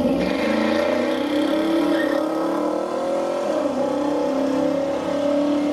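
Car engines idling at a drag-strip start line, the pitch creeping up over a few seconds and then dropping back to a steady idle.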